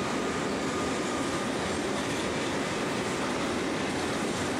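Freight train wagons rolling past at speed: a steady noise of steel wheels running on the rails.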